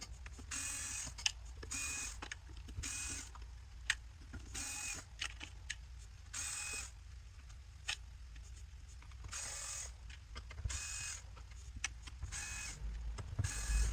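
Small electric screwdriver whirring in short bursts of about half a second, roughly every one to two seconds, backing out the bottom-panel screws of a laptop, with light clicks between.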